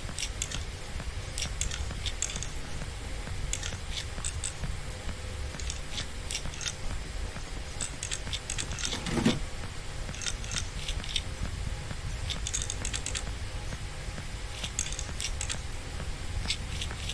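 Screwdriver driving the motherboard's mounting screws into the case standoffs: scattered small, sharp metallic clicks and ticks over a steady low hum, with one brief falling squeak about nine seconds in.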